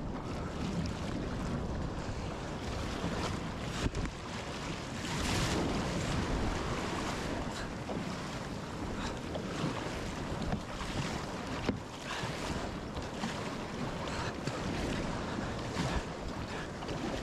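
Wind buffeting the microphone over waves and surf washing around a kayak at sea, swelling and easing, with a few sharp knocks.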